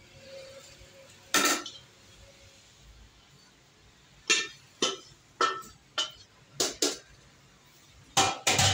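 Metal clinks and knocks of an aluminium cooking pot being handled on a gas stove, with a metal utensil against it. One knock about a second and a half in, then a run of sharp clinks about every half second from about four seconds in, and a louder cluster near the end.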